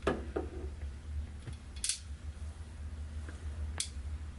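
Hand tools clicking and snapping on electrical wire as it is stripped and crimped: a couple of knocks at the start, then two sharp snaps about two seconds apart.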